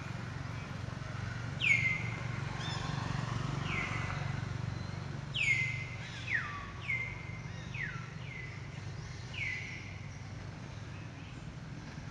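A bird calling repeatedly, about ten short notes that each drop steeply in pitch, a few falling further than the rest, over a steady low hum.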